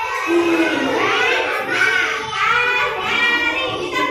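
Children's voices singing together in high pitch, a continuous sung melody without pause.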